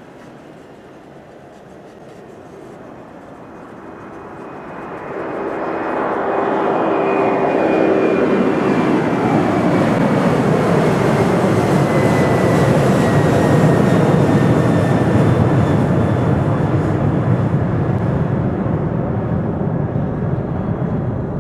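Boeing 767-300ER's twin jet engines roaring as the airliner passes, building from about four seconds in to a peak midway and then easing slightly. Engine whines sit over the roar and slide gently down in pitch as it goes by.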